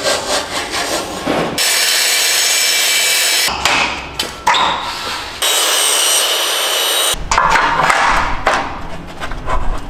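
Two bursts of a power tool cutting aluminium decking, each about two seconds long and starting and stopping abruptly. Between them come shorter knocks and scraping as the boards are handled.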